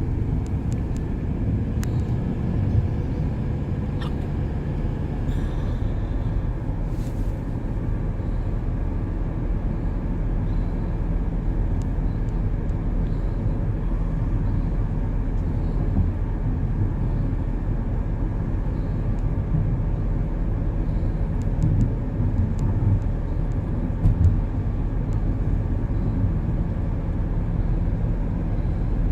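A car driving at a steady pace: a low, even engine and road rumble with a few faint clicks.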